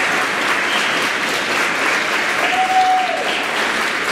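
Audience applauding steadily. A short held tone rises over the clapping about halfway through.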